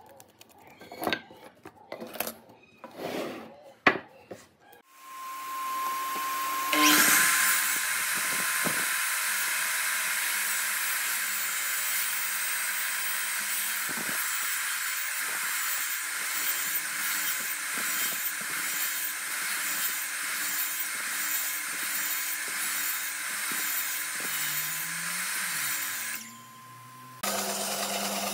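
A few light knocks of handling wood on a workbench. About five seconds in, a compound miter saw spins up with a steady whine and cuts through a thick pine beam for about twenty seconds. Near the end it stops, and a stationary saw with a thin vertical blade starts running.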